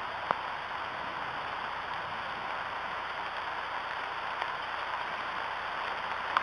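Steady rain falling, an even hiss, with one sharp tick shortly after the start.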